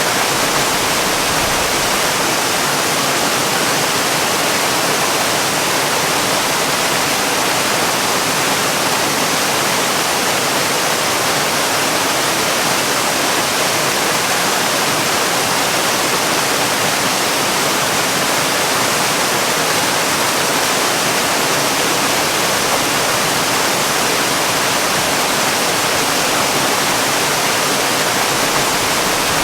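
Waterfall: a steady, unbroken rush of falling water, even in level throughout, with little deep rumble.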